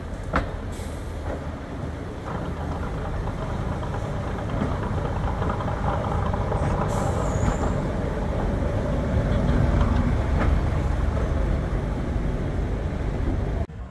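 First-generation diesel multiple unit's underfloor diesel engines running as the railcar creeps over a level crossing and passes directly beneath, growing louder as it nears. A sharp click sounds near the start, and a brief high squeal comes about halfway through.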